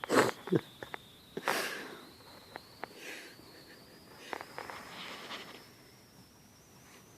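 A cat sniffing and moving about, with a few short breathy sniffs in the first two seconds and soft scattered taps and clicks after. A faint, thin, high-pitched whine runs underneath, slowly rising in pitch.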